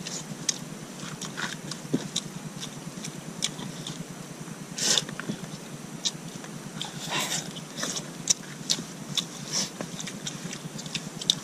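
People eating rice and chicken with their hands off a banana leaf: close-up chewing and lip smacking, with many small scattered clicks and a few louder short bursts about five and seven seconds in.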